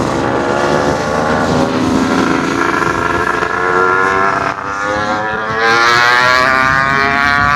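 Yamaha RX135's single-cylinder two-stroke engine through an open-cat silencer, revving up as the bike accelerates. Its pitch rises steadily, drops with a gear change about four and a half seconds in, then climbs again.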